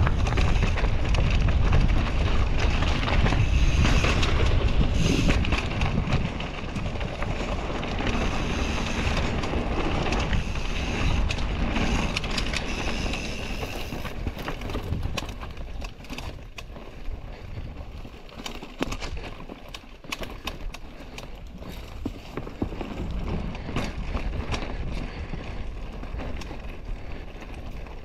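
Mountain bike riding a dirt trail: wind noise on the microphone, tyres rolling and the bike rattling over roots and bumps. The wind rush is heaviest in the first six seconds, then eases, while sharp clicks and rattles come more often in the second half.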